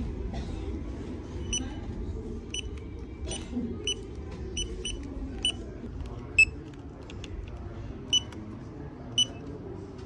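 CipherLab handheld barcode data terminal beeping: about ten short, high beeps at uneven intervals as it is keyed in during a stock inventory, with a few louder beeps in the second half. A low background hum runs under it.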